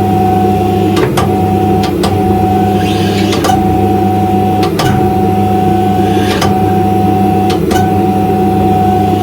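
Hydraulic forging press's motor-driven pump running with a steady hum and whine, with sharp clicks or knocks about once a second while it squashes metal.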